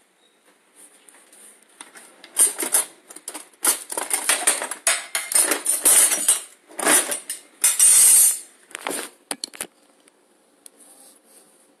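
Dishes and utensils clattering: a dense run of knocks, clinks and scrapes for several seconds, stopping just before ten seconds in.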